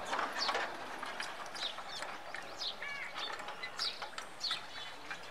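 Small birds chirping: repeated short, high calls that drop in pitch, with one looping call about three seconds in, over a faint outdoor background.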